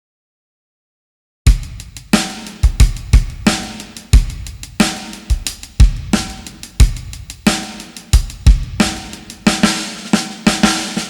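Background music: after a moment of silence, a track with a full drum kit kicks in about a second and a half in, with a steady beat of kick, snare and cymbals.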